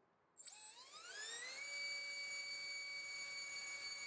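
BrotherHobby Tornado T1 1407-2800KV brushless motor on 4S spinning a four-blade 3-inch propeller on a thrust stand. It spools up about half a second in with a rising whine, then holds a steady high whine at full throttle, around 34,000 rpm.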